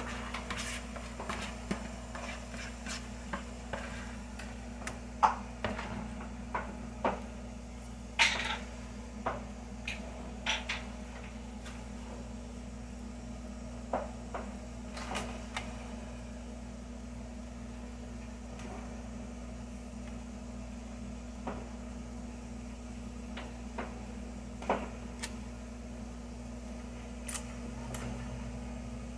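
Metal spoon clicking and scraping against a foil pie pan while sweet potato pie filling is spread into the crust, the clicks busiest in the first half. A steady low hum runs underneath.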